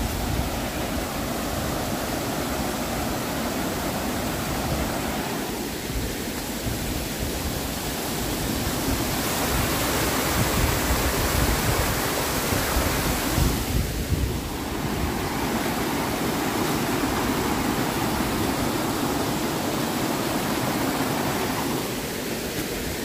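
Woodland stream rushing, a steady noise of running water that rises and falls a little.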